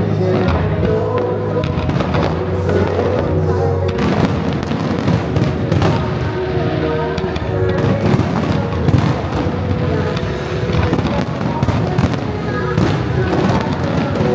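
Fireworks bursting in quick succession, many sharp pops and bangs, over music played in sync with the display.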